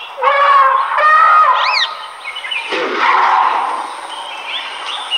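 A series of high-pitched animal calls: wavering, pitched cries in the first second or so, then a quick rising whistle-like call, with a short dull noise about three seconds in and small chirps near the end.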